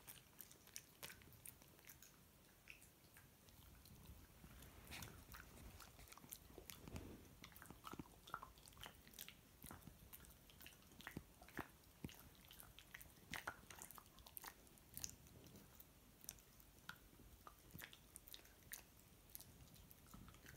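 A Chinese crested dog chewing something crunchy: quiet, irregular crunches and clicks of the teeth, several a second at times.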